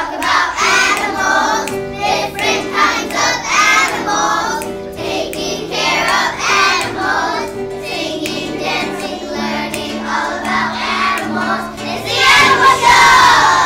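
A group of young children singing a song together, accompanied by an acoustic guitar; the singing swells loudest near the end.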